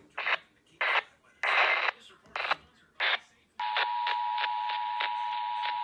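Emergency Alert System transmission received on a scanner radio: a run of short, broken buzzing bursts of the digital alert header, then about 3.5 s in the steady two-tone EAS Attention Signal (853 and 960 Hz) starts. A regular ticking of about four a second runs through the tone.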